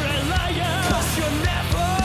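Background rock music with a singing voice over a steady drum beat.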